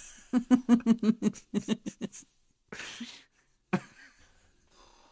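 A person laughing, a quick run of short pitched 'ha' pulses lasting about two seconds, then a breathy gasp and a single click.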